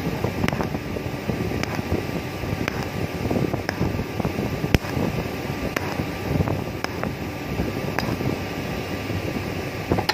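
Stick-welding arc crackling and hissing on a thin steel pipe, with sharp ticks about once a second.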